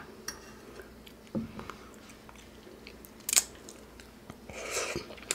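Close-miked eating: quiet chewing with small mouth clicks, and a sharp, brief crunch about three seconds in.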